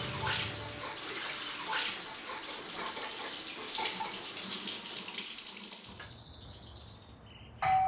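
Tap water running into a sink, with a few light knocks, stops about six seconds in. Near the end a doorbell chimes once, its tone ringing on.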